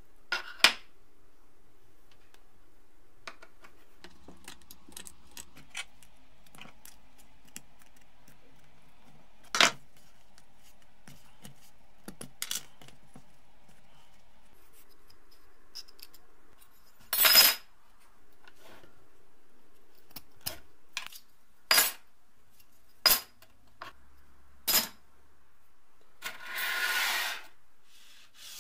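Thin rusty metal frames from an old flip calendar clinking against each other and against a wooden tabletop as they are separated by hand: a dozen or so sharp single clinks, then a longer jangling clatter near the end as they fall into a pile.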